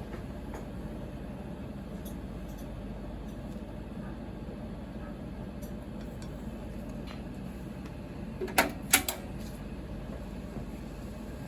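Steady room hum in a noodle kitchen, broken by a short clatter of sharp knocks about eight and a half seconds in, two of them loud.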